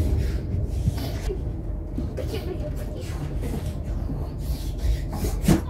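Train running, heard from inside the carriage as a steady low rumble, with faint voices now and then and a brief louder sound near the end.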